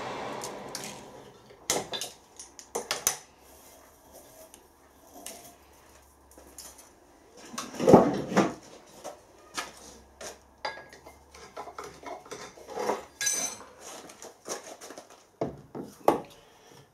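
A milling machine's drilling noise dies away at the start, followed by irregular metallic clinks, clanks and knocks as tools, a drilled metal plate and a machine vise are handled on the mill's steel table, with the loudest clatter about eight seconds in.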